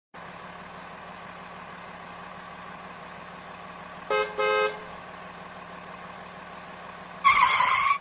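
Cartoon truck sound effect: a steady engine hum, two short horn honks about four seconds in, and a louder wavering noise near the end.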